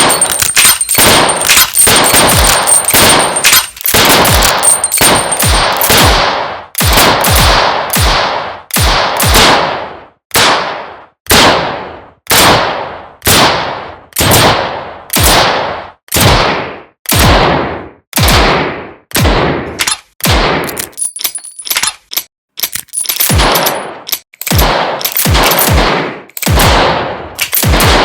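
Revolver gunshots fired one after another, each a sharp crack with a decaying tail. They come thick and overlapping for the first few seconds, then as separate shots under a second apart.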